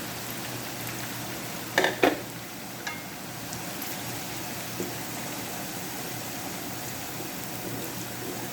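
Blended garlic and chili frying in hot peanut oil with whole spices, a steady sizzling hiss. Two sharp knocks about two seconds in, with a couple of fainter clicks after.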